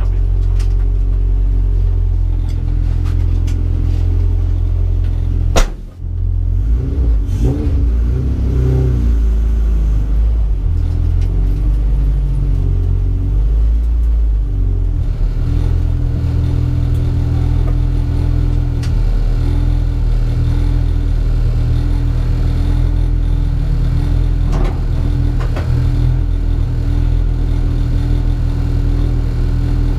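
EG Honda Civic's engine idling steadily, heard from inside the cabin. A sharp knock about five and a half seconds in, after which the engine note wavers for a few seconds before settling back to a steady idle.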